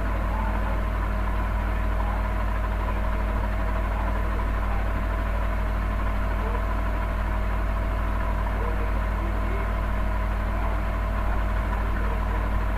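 Steady low mechanical hum with a few faint steady tones above it, even in level throughout.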